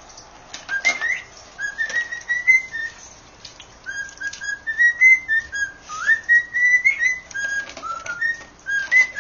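Cockatiel whistling a long run of short notes, many gliding upward, while a dog crunches dry food in a bowl beside it, making sharp clicks and crunches between the whistles.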